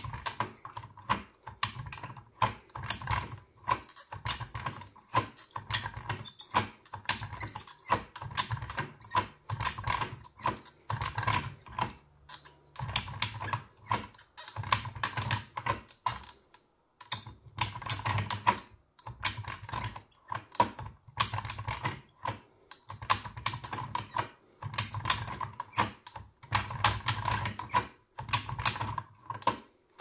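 Rapid, irregular metallic clicking of a lock pick working the levers of a Fiam Iseo 6+6 lever lock. It comes in bursts with short pauses.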